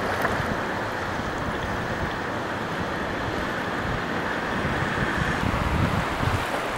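Waimakariri River in flood, fast brown water rushing and churning over standing waves in a steady wash of noise. Wind gusts on the microphone add an uneven low rumble.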